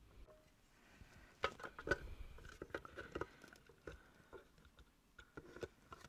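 Irregular small clicks and light knocks of hard plastic parts being handled as a white plastic housing is fitted onto a vacuum cleaner motor, busiest in the first half with a few more taps near the end.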